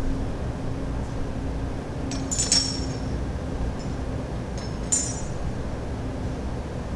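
Altar vessels (a metal chalice and paten and a glass cruet) clinking as they are handled during the purification after Communion: two bright ringing clinks, about two and a half seconds and five seconds in, over a steady low hum.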